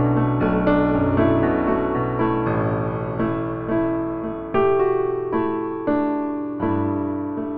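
Background piano music: a slow, gentle piece of struck notes and chords, each left to ring and fade before the next.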